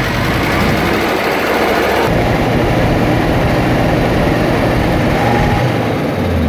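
Diesel engine running steadily. The sound changes abruptly about two seconds in.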